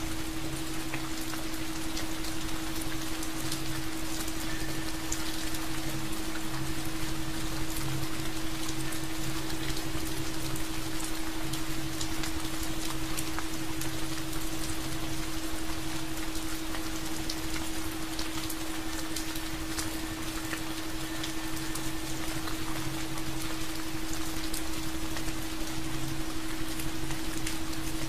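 Steady heavy rain, a dense hiss with many single drops ticking through it. A low steady tone runs underneath without a break.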